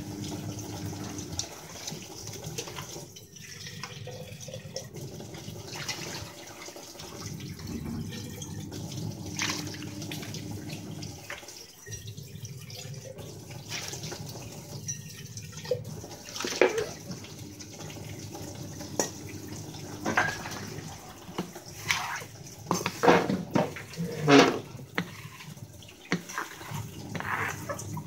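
Tap water running into a steel kitchen sink while metal utensils are washed and rinsed. Sharp clanks of metal vessels knocking against each other and the sink come more often in the second half, the loudest near the end.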